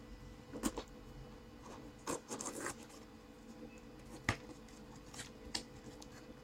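A shipping package being handled and opened by hand: scattered soft rustles and short clicks, with a few sharper clicks about two seconds in and again about four seconds in.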